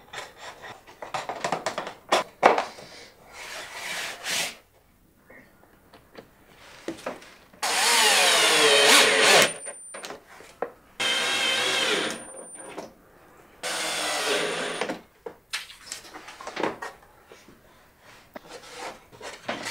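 Cordless drill driver driving screws into a pine frame: three runs of a second or two each in the middle, the first with the motor pitch dropping as the screw bites. Before them, wooden spacer blocks clack as they are set between the slats, and more knocks of wood on wood follow.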